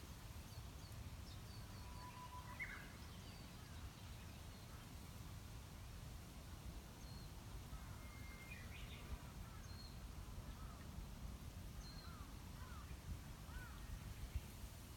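Quiet wind in a bamboo forest: a low, steady rumble with a faint hiss. Scattered small bird calls, short whistles and chirps, come now and then throughout.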